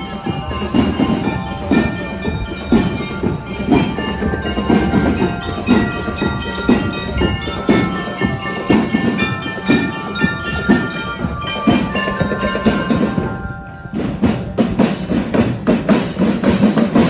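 Drum and lyre corps playing on the march: bell lyres ring out a melody over a steady drum beat. The lyre melody stops about fourteen seconds in, and the drums carry on.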